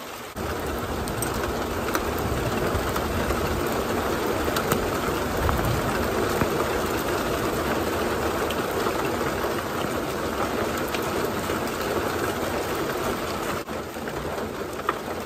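Heavy thunderstorm rain falling steadily, with a few faint clicks over it.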